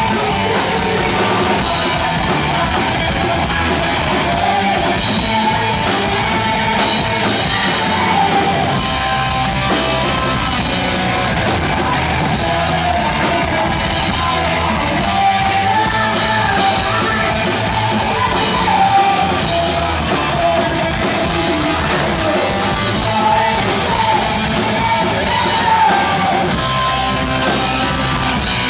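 Heavy metal band playing live: loud, dense distorted electric guitars, bass and drums, with a singer's vocals over them.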